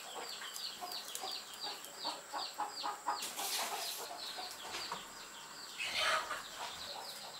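Chicks peeping: a rapid run of short, high, falling peeps, about four a second, with a brief rustle about six seconds in.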